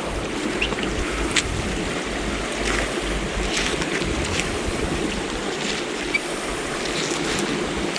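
Fast-flowing river water rushing steadily, with a few faint splashes or knocks scattered through it.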